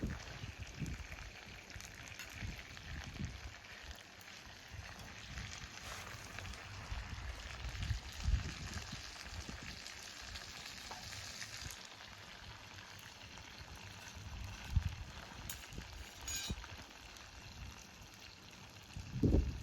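Wood fire burning, with a steady hiss and small crackles.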